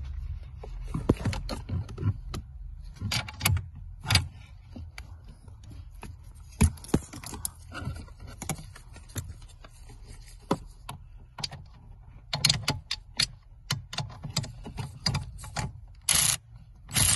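Irregular metallic clicks, clinks and knocks of hand tools and loosened parts while a steering column is unbolted under a car's dashboard, with a brief rustle near the end.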